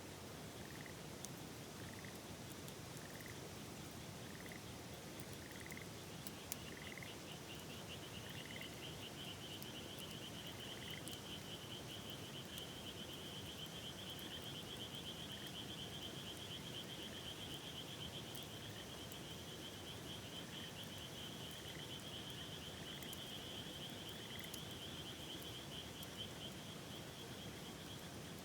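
Frogs calling over a steady rush of river water. A short rising note repeats about once a second, and from about six seconds in a higher, long, finely pulsed trill joins and runs on.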